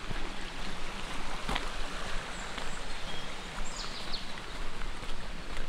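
Steady hiss of rain falling in woodland, with a low rumble underneath. A small bird chirps a few times around the middle, and there is one sharp click about a second and a half in.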